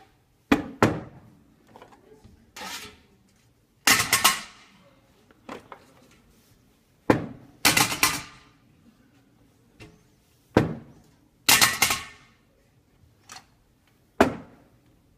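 Stage props handled on a tabletop: hollow cylinders and a glass jug set down and knocked, giving a dozen or so sharp thunks and clatters, some in quick clusters.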